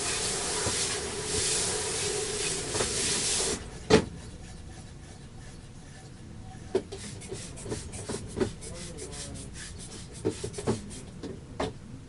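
A loud, steady rush of air with a low hum stops abruptly about three and a half seconds in. A sharp click follows, then scattered light clicks and knocks of parts being handled.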